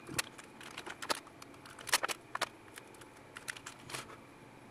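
Scattered small, irregular clicks and taps, the loudest about two seconds in, from metal tweezers and tiny parts being handled on a workbench while surface-mount components are placed by hand onto a solder-pasted circuit board.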